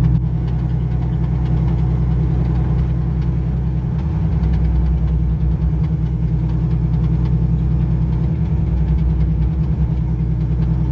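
Car engine idling, a low, steady running sound.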